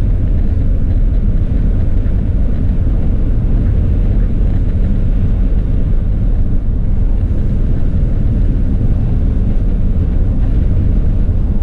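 Car driving at road speed on a snowy highway, heard inside the cabin: a steady low rumble of tyre, engine and wind noise.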